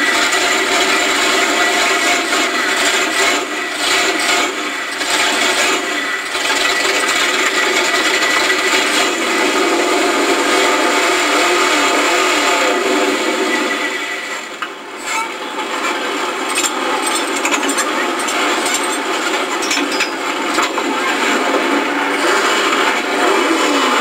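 Race truck's engine running, heard from inside the cab: a loud, harsh, steady drone with a thin high whine, dipping briefly a little past halfway.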